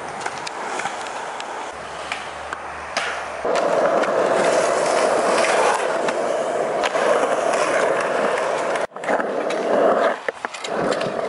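Skateboard wheels rolling on a concrete skatepark bowl: a steady rolling noise that comes in loud about three seconds in, with scattered clicks and knocks from the board. It breaks off briefly near the end, then resumes.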